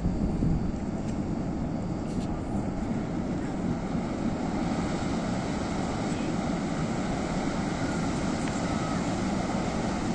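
Steady low rumble of a large cruise ship, Royal Caribbean's Odyssey of the Seas, under way as it pulls away from the dock.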